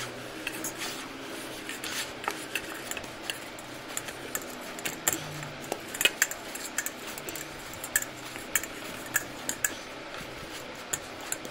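Potato-and-sago dough being kneaded by hand in a stainless steel plate: many irregular light clicks and taps of the hand and dough against the metal.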